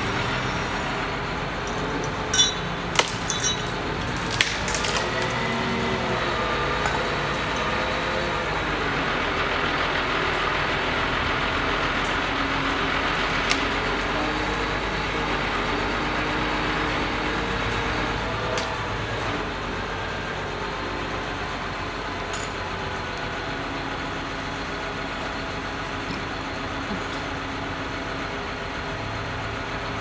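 Truck-mounted crane's engine running steadily, its pitch wavering up and down for a few seconds. A few sharp cracks come in the first few seconds.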